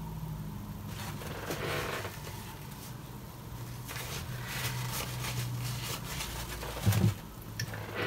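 A low steady hum whose pitch steps down now and then, with faint rustling and scraping over it and a short low bump near the end.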